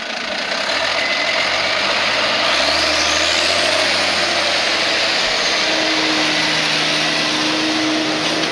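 Tractor diesel engine running, its pitch rising over about two seconds as it revs up and then holding steady.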